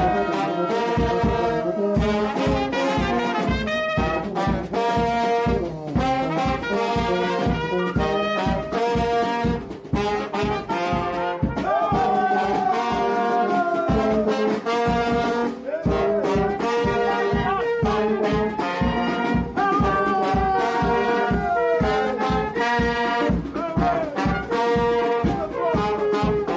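Brass band playing a tune, trumpets and trombones holding and moving between notes over a steady beat.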